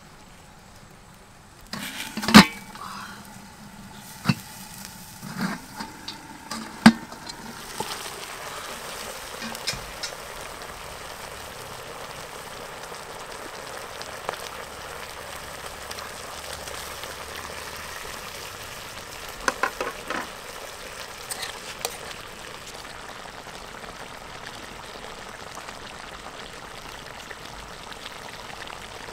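Sharp metal clanks as a steel bowl used as a lid is lifted off a wok, then a pork leg sizzling steadily in bubbling fat and sauce in the wok, with a few more clicks about twenty seconds in.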